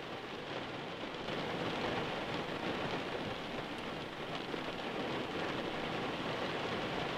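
Steady rain falling on wet alpine heath and scrub, an even hiss.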